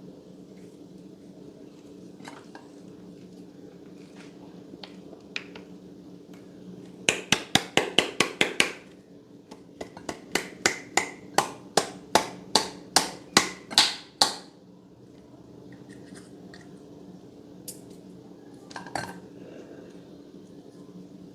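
Slime being pressed and worked by hand, giving two runs of sharp popping clicks, the first quick and the second at about three a second. A steady low hum runs underneath.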